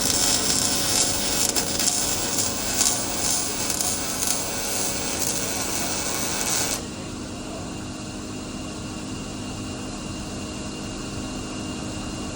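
Electric arc welding: the arc crackles and sizzles steadily as a bead is run, then cuts off suddenly about seven seconds in, leaving a steady background hum.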